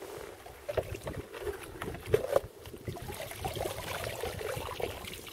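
Water splashing and trickling at an ice-fishing hole as a wet line is handled at the water's edge, with irregular short knocks and rustles.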